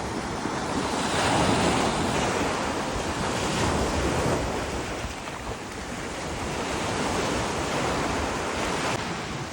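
Wind and waves making a loud, steady rushing that swells and eases every few seconds, with wind buffeting the microphone.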